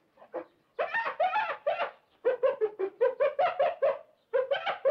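An animal calling in rapid strings of short, pitched notes, about five or six a second, in bursts of about a second separated by brief pauses.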